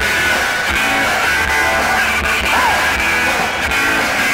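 Loud rock music with guitar and a singing voice, with a steady beat.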